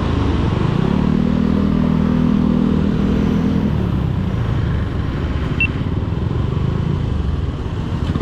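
Motorcycle engine running under way, heard from the rider's own bike with steady wind and road noise. The engine note comes up clearly about a second in and holds for a few seconds, then sinks back under the wind noise.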